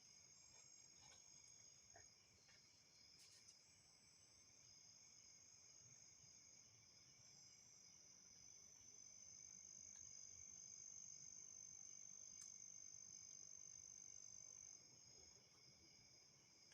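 Faint, steady high-pitched chirring of night insects such as crickets. One insect's trill swells louder about halfway through and cuts off suddenly near the end, with a few faint clicks in the first few seconds.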